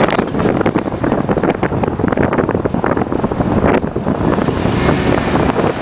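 Heavy wind buffeting the microphone over the engine of a Chevrolet Silverado pickup running as it crawls over a dirt rut.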